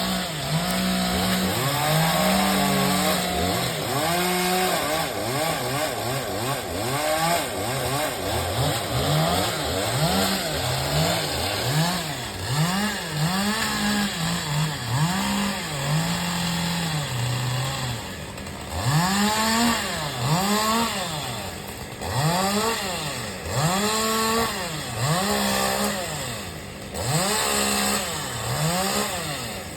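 Gas chainsaw engine revved up and down over and over, its pitch rising and falling about once a second.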